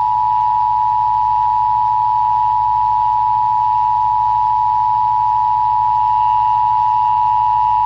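Emergency Broadcast System attention signal: two steady tones (853 and 960 Hz) sounding together without a break, over a low hum.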